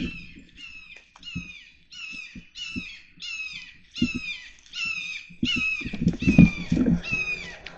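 Sandhill cranes calling: a rapid series of rattling, trumpeting calls, about two a second, stopping near the end. Low knocks and rustles of handling come through underneath.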